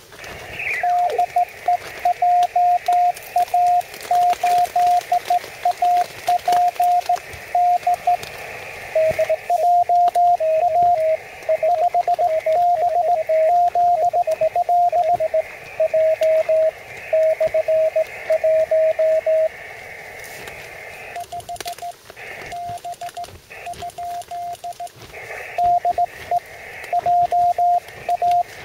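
Morse code (CW) tones from a small QRP shortwave transceiver, keyed in dots and dashes over steady band hiss, at two slightly different pitches as signals are exchanged in a contact. The keying pauses for about a second and a half two-thirds of the way through, leaving only hiss, then resumes.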